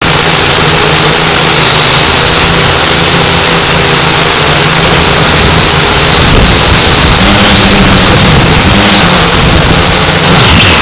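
A small drone's electric motors and propellers running loudly, heard from its own onboard camera: a steady high whine over a rushing noise. The whine shifts in pitch several times from about seven seconds in and dips, then climbs again near the end, as the motor speed changes.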